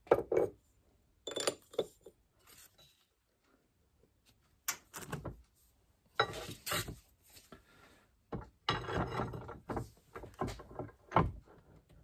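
Irregular clunks, clinks and scrapes of steel parts being handled on a hand arbor press as a stub axle with a new wheel bearing is set up for pressing. A sharper knock comes near the end.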